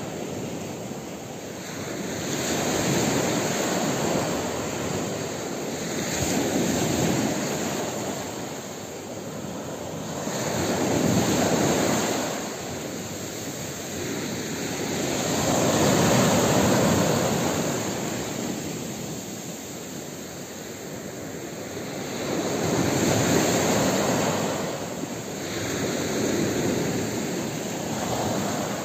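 Small sea waves breaking and washing up a sand-and-shingle beach, swelling and fading every few seconds.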